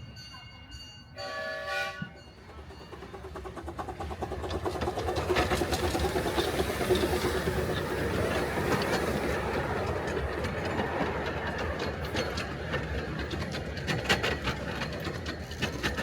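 Miniature railway train: a short whistle blast about a second in, then the train running by with wheels clicking over the rail joints. It grows louder over the next few seconds and stays close.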